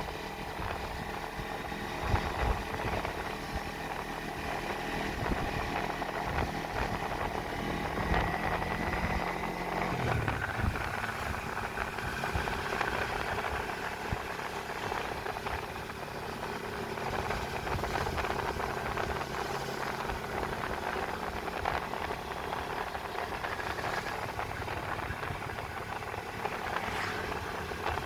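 Kawasaki Versys-X 250 motorcycle's parallel-twin engine running while riding; its note rises and then drops sharply about ten seconds in.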